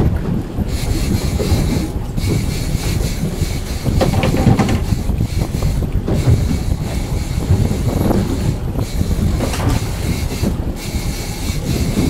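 Steady low rumble of wind buffeting the microphone on an open boat deck, with boat and sea noise underneath.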